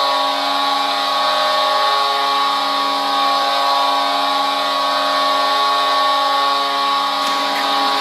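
Ice hockey goal horn sounding one long, steady blast.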